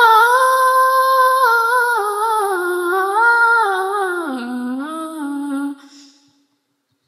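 A young woman singing unaccompanied: one long drawn-out closing note of a Malayalam prayer song, its pitch wavering and dropping lower about four seconds in, then stopping about six seconds in.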